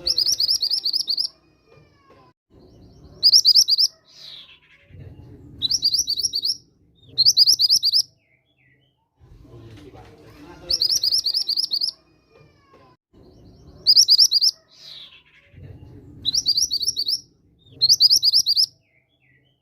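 Mantenan gunung (mountain mantenan) singing: a series of short, rapid high-pitched trills repeated every couple of seconds, with an occasional falling slurred note between them.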